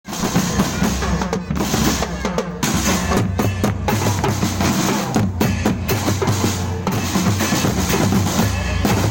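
Loud music with a driving drum beat and heavy bass, played through a large sound system.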